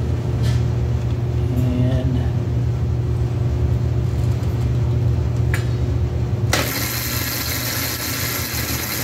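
Razor MX350's electric drive motor running steadily on 12 volts from a jump-start booster pack, a steady low hum that shows the motor works. About six and a half seconds in, a loud hiss starts suddenly and stops just after the end.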